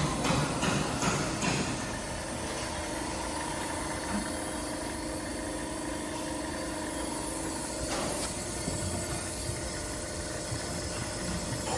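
Gauze-processing machine running with a steady mechanical hum and tone. It rattles more in the first couple of seconds, and there is a single knock about eight seconds in.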